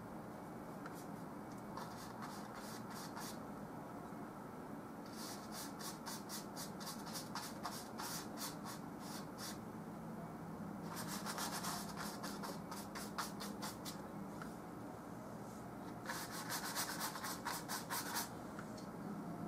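Paintbrush stroking and scrubbing oil paint onto canvas, in four runs of quick scratchy strokes with short pauses between them. A steady low hum runs underneath.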